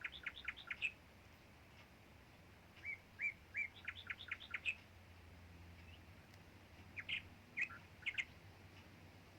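A songbird singing in the background: three short phrases, each a few evenly spaced chirps followed by a quick trill of rising notes, with pauses between them.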